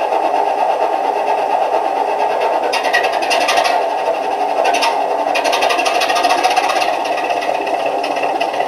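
Class 27 diesel engine sound from a LokSound V4 DCC sound decoder in a Heljan model, played through the model's small loudspeaker: the engine runs steadily, with two spells of a quick rhythmic clatter about three and five seconds in.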